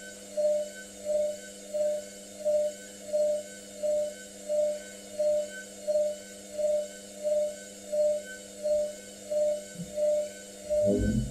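Hotpoint Ariston Aqualtis washing machine running its wool cycle: a steady hum with a pulsing tone that repeats evenly about one and a half times a second, and a low thump near the end.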